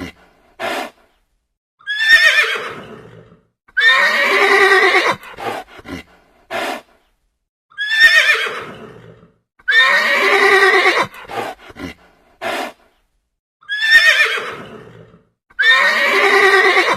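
Horse whinnying and neighing: the same recorded sequence plays three times, each a call falling in pitch, then a longer whinny, then a few short sharp sounds.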